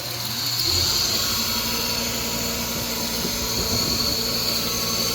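Restored bench grinder's electric motor spinning up, rising in pitch and level over the first second, then running steadily with a hum and a high hiss.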